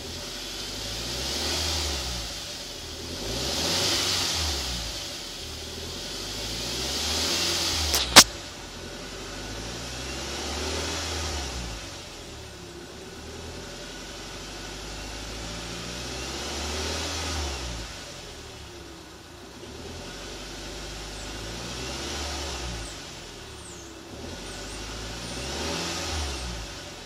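Audi A4 B7 engine running and revving up and down several times, with a faint whine that rises and falls in pitch with the revs. A single sharp click about eight seconds in.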